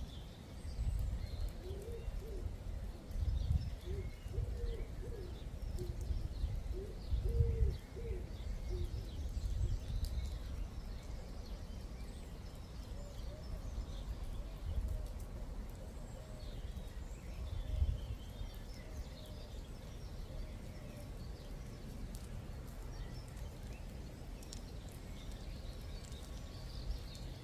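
A pigeon cooing in a run of short phrases through the first eight seconds or so, with small birds chirping now and then. Irregular, gusty low rumbles run underneath and are the loudest thing heard.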